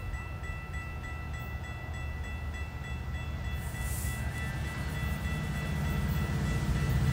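Diesel freight train approaching, its low engine rumble growing steadily louder. A steady high tone sounds throughout.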